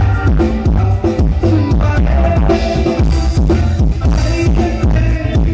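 Loud dance music with heavy bass and a steady drum beat played through a Thai rot hae sound truck's sound system during a sound check.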